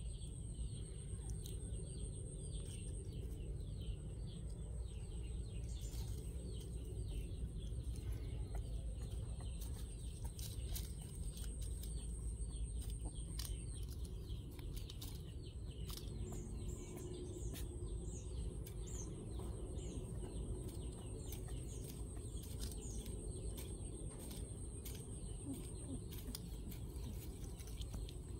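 Birds chirping in many short, quick, high calls over a steady low rumble, with a thin high whine that comes and goes.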